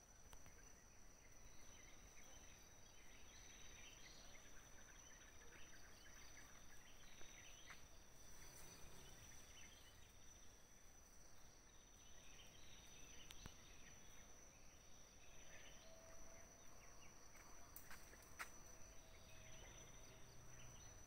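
Near silence: faint outdoor ambience, with a thin steady high-pitched whine and scattered faint chirps, like insects and distant birds.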